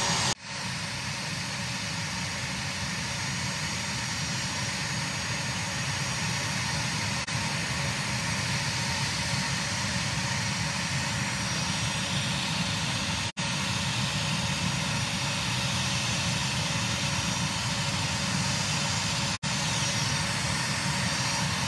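Steady engine-like rumble and hiss with a faint high whine, broken four times by brief dropouts of the audio.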